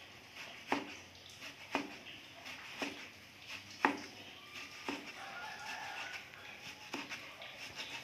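Meat cleaver slicing raw pork on a plastic cutting board: a sharp knock of the blade against the board about once a second, six in all, with a longer pause before the last one.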